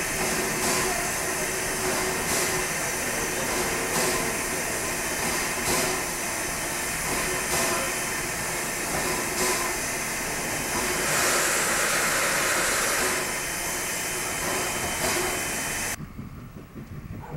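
Sierra Railway No. 28, a Baldwin 2-8-0 steam locomotive, standing with steam hissing steadily, with a faint beat about every two seconds and a louder spell of hiss for about two seconds past the middle. The hiss cuts off about a second before the end.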